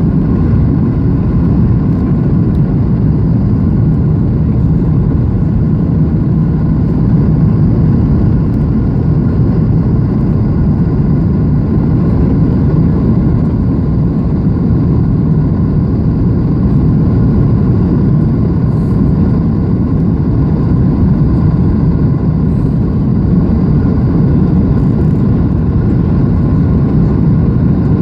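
Steady cabin noise inside a Boeing 737-700 by the wing: an even, loud low rumble of the CFM56 engines and airflow, with a few faint steady tones above it, unchanging throughout.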